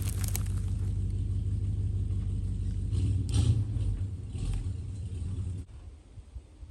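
Truck engine running under light load as it pulls a chain hooked to a log to roll it over, swelling briefly about three seconds in, then cutting off suddenly near the end.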